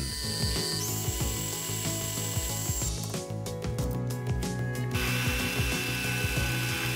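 Mini lathe running and turning the end of a metal rod, with a high steady whine that steps up in pitch about a second in. In the middle the lathe is stopped and stock is being set in the three-jaw chuck, a run of clicks and rattles; then the lathe runs again with a lower whine.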